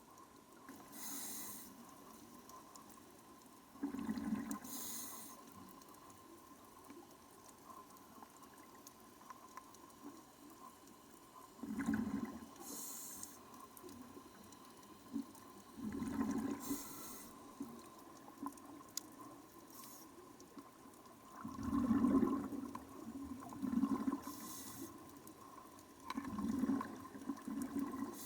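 Scuba diver breathing underwater through a regulator: a short hiss on each inhale, then a louder rush of exhaled bubbles, every four to five seconds. A faint steady tone runs underneath.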